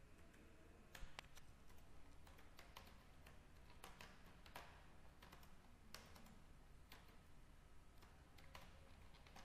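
Faint typing on a computer keyboard: irregular single keystrokes, a few a second.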